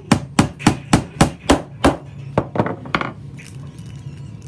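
A rapid, even series of sharp knocks, about three and a half a second, that slows and fades out about three seconds in.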